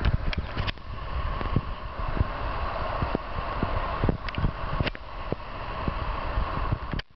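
City street traffic, with cars passing close by, low wind rumble on the microphone and scattered sharp clicks. The sound cuts off suddenly near the end.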